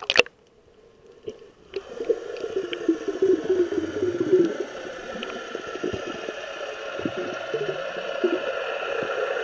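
A splash as the camera goes under the surface. From about two seconds in comes a steady underwater drone with several held tones and bubbling, the sound of a boat motor heard through the water.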